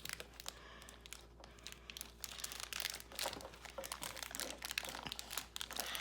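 Toy packaging crinkling and rustling as it is handled and opened, with irregular crackles that get busier from about two seconds in.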